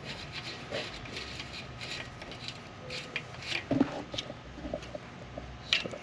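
Soft rubbing and small metallic ticks of a hex key turning a fine-threaded bolt into a bicycle chain tensioner by hand, with a sharper click near the end.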